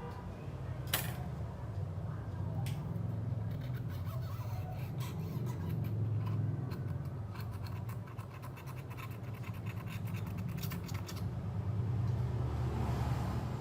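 Scratching and sharp clicks of hand tools working on a device being taken apart, with a dense run of rapid clicking in the middle, over a steady low hum.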